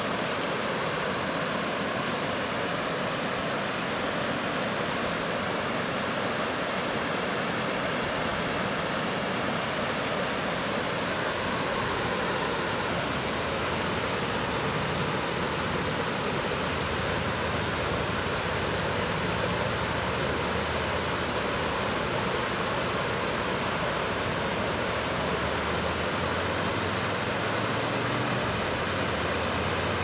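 Small waterfall: stream water pouring and splashing over a low ledge in a steady, unbroken rush. A faint low rumble builds under it in the second half and is strongest near the end.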